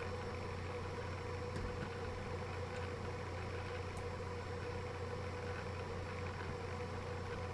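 Steady low electrical hum with hiss and a fainter steady higher tone.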